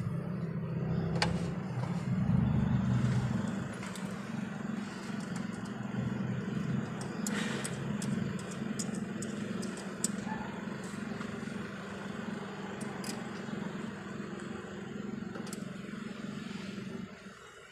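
An engine running steadily with a low hum, louder for the first few seconds and stopping just before the end. Light metallic clicks and taps come over it, as hands work at the camshaft timing sprocket and belt of the open cylinder head.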